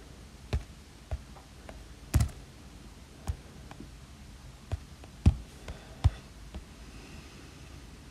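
Stylus tip tapping on an iPad Pro's glass screen while drawing: sharp, irregular single clicks, about ten over the stretch, with a faint brush of the tip across the glass near the end.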